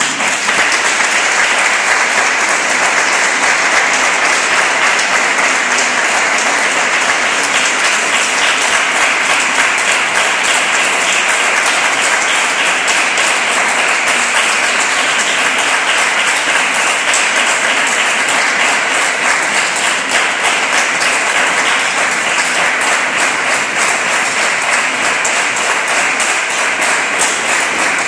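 Steady applause from a large crowd: dense, even clapping that starts abruptly as music stops and holds at a constant level throughout.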